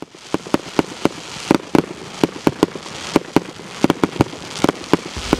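Fireworks going off: an irregular run of sharp bangs, several a second, over a crackling hiss that grows toward the end.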